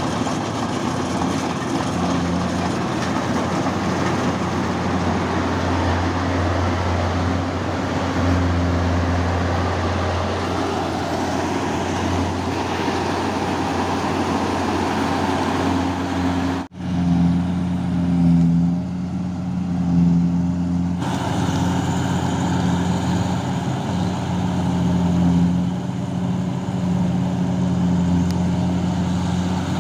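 Engine of farm machinery (a tractor or combine harvester) running steadily, with a brief sudden dropout about 17 seconds in before a similar engine sound carries on.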